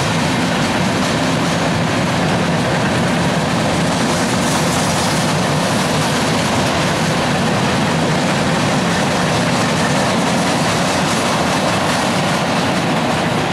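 Empty coil steel cars of a freight train rolling past: a steady rumble and clatter of steel wheels on the rails.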